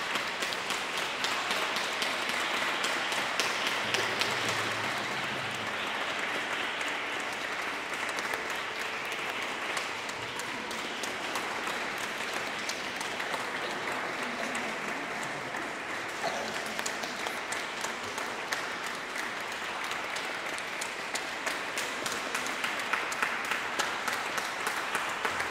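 Audience applauding: a dense, even patter of many hands clapping, a little stronger in the first few seconds and then steady.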